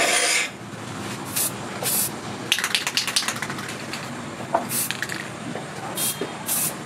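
Aerosol spray can hissing: a steady spray cuts off about half a second in, followed by several short bursts of spray. A quick run of sharp clicks comes about three seconds in.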